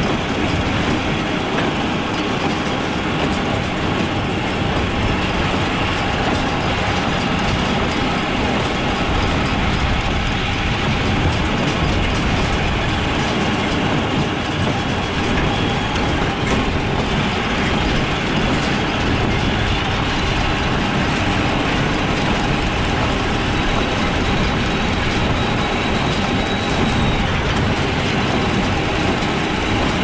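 New Holland 570 small square baler and its Case IH Maxxum 5140 tractor at work baling hay, heard from the hay wagon hitched behind them. There is a steady, loud mechanical clatter of the machinery and the wagon's steel rack.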